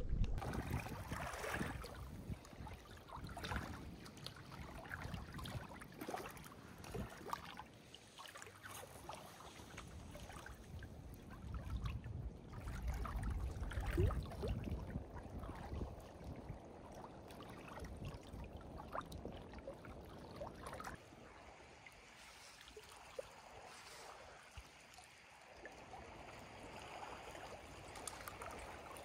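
Gentle lake water lapping and trickling at a rocky shore, with scattered faint clicks and knocks.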